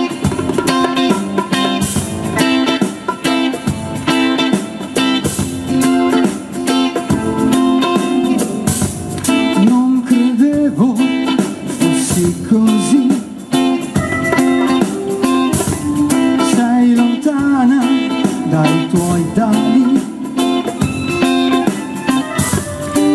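A live band plays an instrumental break led by guitar, with bending, sliding guitar notes over keyboard and hand drums.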